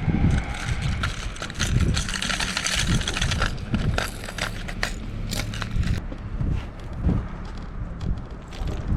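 Clicking, rattling handling noises of fishing gear being worked on a boat, with low buffeting of wind on the microphone.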